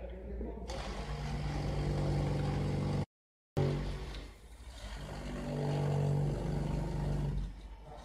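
Electric furnace lining vibrator running, a steady motor hum with a low rumble as it compacts dry refractory ramming mass in the furnace lining former. The sound cuts out for half a second about three seconds in, dips soon after and builds up again.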